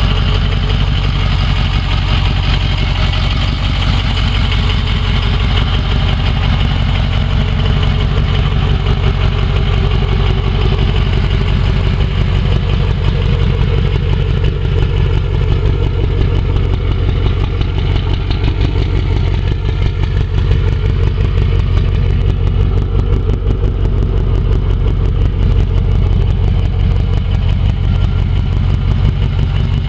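2005 Ford F-250 Super Duty pickup's engine idling steadily.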